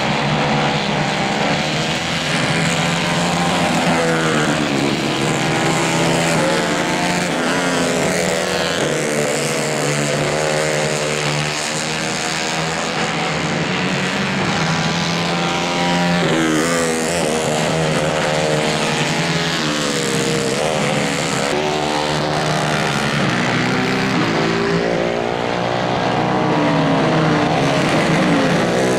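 Several racing kart engines running together, each note rising under acceleration and falling off, so the pitch keeps swelling and dropping as the karts pass.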